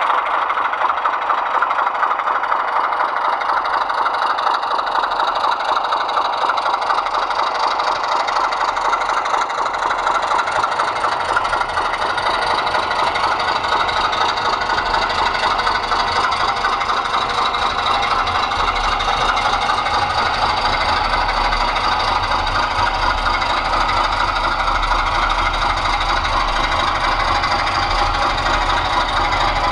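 Heljan Class 25 model diesel locomotive's DCC sound decoder playing a steady diesel engine running sound.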